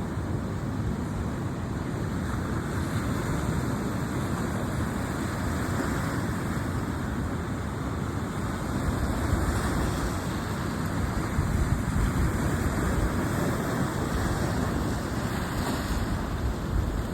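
Sea surf washing steadily onto the shore, swelling a little in the middle, with wind rumbling on the microphone.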